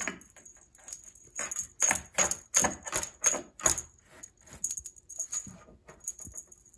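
Cat wand toy jingling and rattling, its small metal bell and plastic ribbon streamers shaken in a quick, irregular run of jangles as the toy is jiggled and batted. The jangles thin out and grow fainter near the end.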